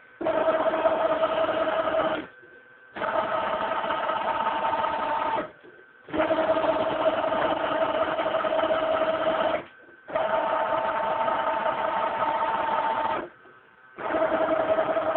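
Stepper motors of a Harbor Freight 7x10 mini lathe converted to CNC, driving the carriage and cross slide back and forth: five separate runs of about two to three seconds each, a steady whine with short gaps between. The pitch of the whine differs from run to run.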